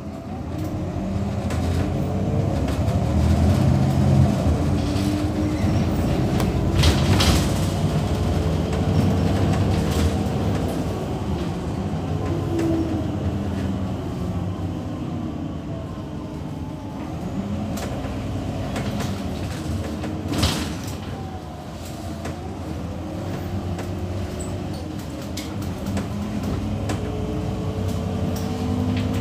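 Inside a city bus on the move: the engine and transmission run with a whine that rises and falls as it speeds up and slows, over a steady rumble. A sharp knock or rattle comes about seven seconds in and again about twenty seconds in.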